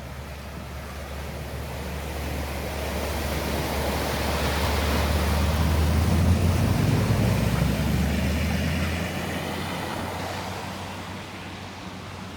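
A vehicle drives past through floodwater, its engine hum and the rushing spray of water building to a peak about halfway through and then fading away.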